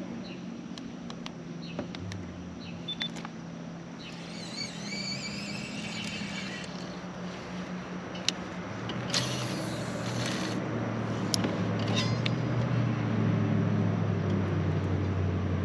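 Steady low drone of a motorboat engine out on the lake, growing louder through the second half, with scattered light clicks.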